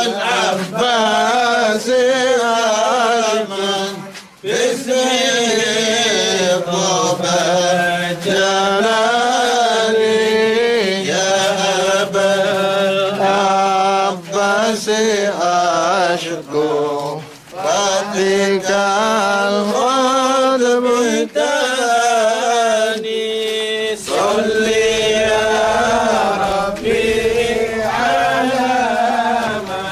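Slow chanting of an Arabic devotional poem (qasida) in praise of Sheikh Ahmad al-Tijani, sung in long, drawn-out melodic lines with short pauses for breath.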